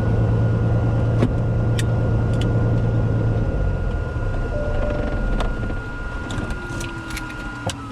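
Steady engine drone heard from inside a vehicle cabin, a low hum with a high whine above it and a few clicks; near the end the whine drops in pitch and fades.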